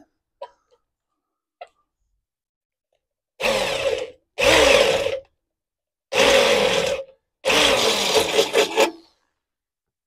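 Electric drill boring a 9 mm hole through steel in four bursts of about a second each, its motor winding down in pitch after each burst.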